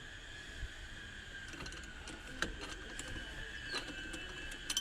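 A few sharp metallic clicks and knocks of hand tools on the steering column while the electronic power steering motor is unbolted, over a steady high-pitched whine in the background.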